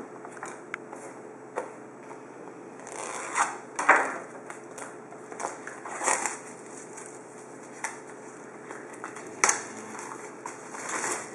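Clear plastic shrink-wrap being torn and crumpled off a sealed football card box: irregular crinkling rustles, with sharper crackles about four seconds in and again near the end.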